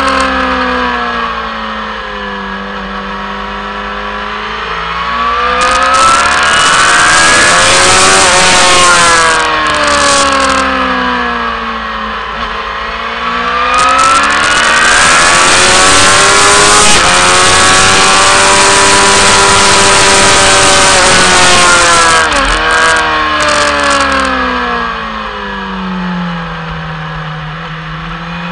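Motorcycle engine heard onboard at racing speed, its revs falling into corners and climbing back out twice, with heavy wind rush on the microphone on the fastest stretches. Near the end the revs drop and settle low.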